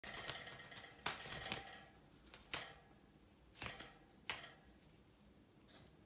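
Cockatiel moving about in a wire cage, flapping its wings: a run of sharp taps and clatters, several close together in the first two seconds, then single knocks about once a second.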